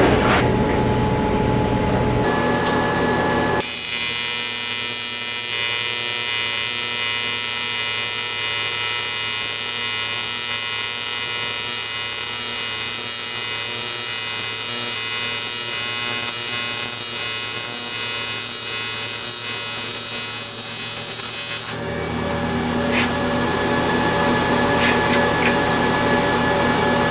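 AC TIG welding arc on aluminum buzzing steadily. The arc is struck about four seconds in and broken off about twenty-two seconds in; before and after it, only a steady machine hum.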